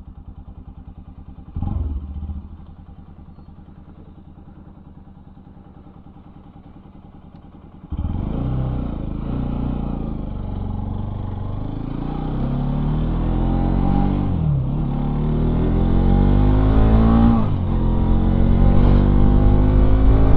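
Bajaj Pulsar NS200's single-cylinder engine idling with an even pulse, with a brief thump about two seconds in. The engine then gets suddenly louder as the bike pulls away, its pitch rising through the gears with two drops at gear shifts in the second half.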